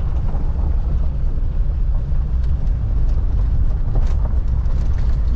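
Van cabin noise while driving slowly on a gravel road: a steady low rumble of engine and tyres, with a few faint pops from the gravel.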